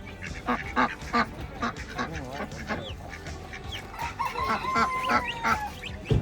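Caged poultry calling: many short clucks and squawks from several birds, with one longer drawn-out call about four seconds in. A brief knock near the end.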